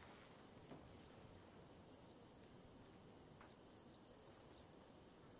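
Near silence: a faint steady hiss of room tone, with one soft click a little under a second in.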